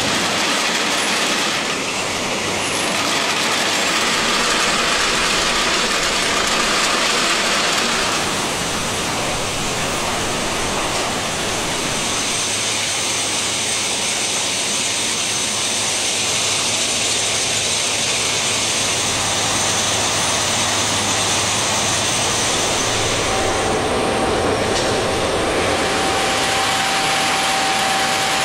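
Plasser & Theurer RU 800 S track renewal train working on the line: a steady, dense mechanical din of heavy machinery and steel wheels on rail. A faint high whine runs through the middle, and a steady mid-pitched tone comes in near the end.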